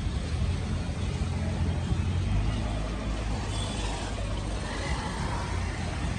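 Street traffic noise: a steady low rumble of motor vehicles, with a motor scooter passing close near the end.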